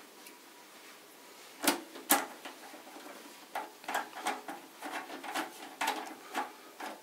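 Clicks and knocks of computer hardware being handled and fastened in a PC case: two sharp clicks about two seconds in, then a run of lighter, irregular clicks and rattles.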